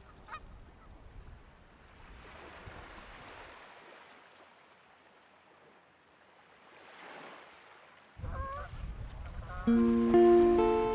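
Soft rushing outdoor ambience swells twice. Then a goose gives one short, wavering honk, and plucked acoustic guitar music comes in near the end, louder than everything before it.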